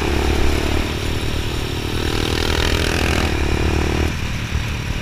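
Motorcycle engine running at road speed, with wind rushing over the microphone. About four seconds in, the engine note drops sharply.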